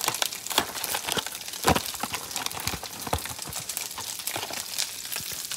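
Cardboard box of frozen chocolate-covered banana slices being handled and opened by hand: scattered rustles and light clicks, with a sharper knock a little under two seconds in and another about three seconds in.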